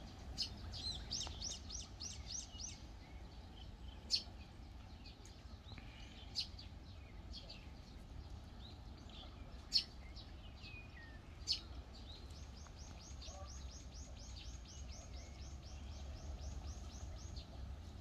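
Small songbirds singing. A quick run of falling high notes comes near the start, a few sharp single chirps follow, and from about twelve seconds in there is a long even trill of repeated falling notes, about five a second, lasting some five seconds, over a low wind rumble.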